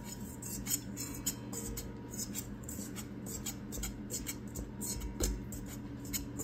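Wire whisk stirring a crumbly mix of almond flour and melted butter in a metal bowl: a run of short scratchy strokes, about three a second, over a steady low hum.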